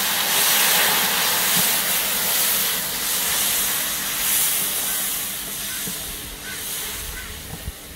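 Water hitting hot oil, golden fried onions and cumin in a large aluminium pot, hissing and sizzling hard as it turns to steam. The hiss is loudest at first and slowly dies down as the pot is stirred with a wooden paddle.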